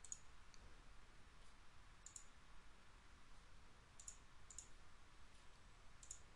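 Faint computer mouse clicks, about five of them a second or two apart, some in quick pairs, over a low steady hiss.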